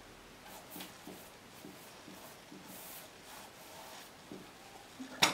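A paintbrush loaded with acrylic paint brushing across canvas in a few short, faint swishes, then one sharp knock about five seconds in.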